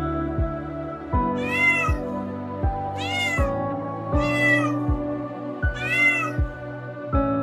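Domestic cat meowing four times, each meow rising then falling in pitch, over background music with a steady beat.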